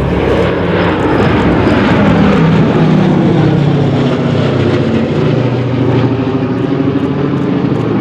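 Propeller-driven aircraft flying past, its engine a loud, steady drone whose pitch shifts slowly as it goes by.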